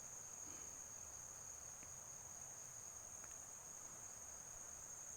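Insects calling in a steady, unbroken high-pitched drone.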